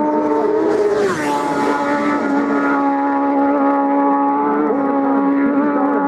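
Race motorcycle engines running at high revs. About a second in, one bike passes close at speed with a rush of noise and its note dropping in pitch.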